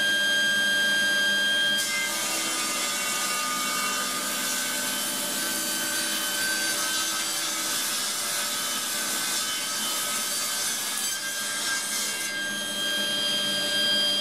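Table saw ripping a small bark-covered pear log lengthwise. The spinning blade's steady whine gives way about two seconds in to the hiss of the blade cutting through the wood for about ten seconds, and the free-running whine returns near the end once the cut is through.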